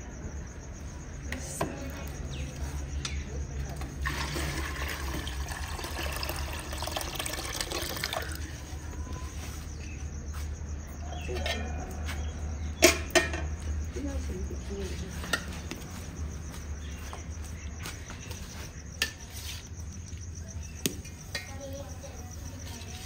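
Steel cookware clattering: one sharp clank of a metal lid or tray about halfway through, with lighter clinks before and after. Near the start, water is poured or splashed for a few seconds, over a steady low hum.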